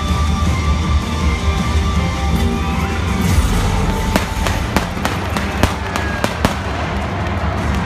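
Loud music with a heavy bass, and from about three seconds in a quick run of around ten sharp pyrotechnic bangs over it.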